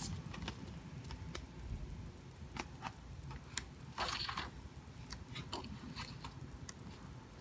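Pages of a paperback coloring book being turned by hand: quiet paper rustles and small ticks, with one louder page swish about four seconds in.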